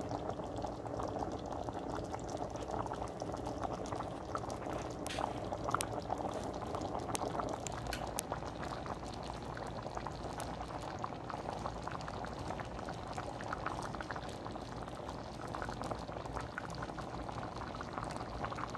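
Pot of asaro, a tomato-based yam porridge, bubbling steadily as it cooks, with large bubbles popping in the thick sauce. A few sharper ticks come between about five and eight seconds in.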